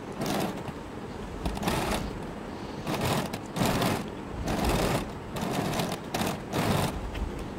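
Domestic sewing machine stitching in short runs, stopping and starting about once a second, as layers of fabric and buckram are fed under the presser foot.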